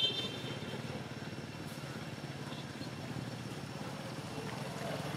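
Steady low hum of a motor vehicle engine running.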